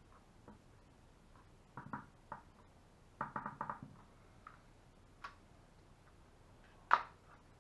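Small knocks and clicks of hard plastic from handling PVC pipe fittings and a hot glue gun. They come in a few short clusters, with one sharper, louder click near the end.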